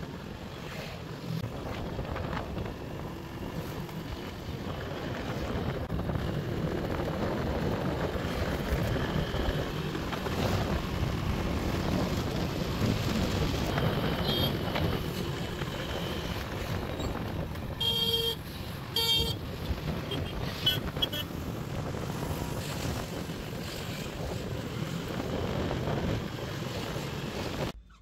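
Steady road and wind noise from a vehicle driving along a road, with two short horn honks about a second apart roughly two-thirds of the way through and a few fainter toots around them.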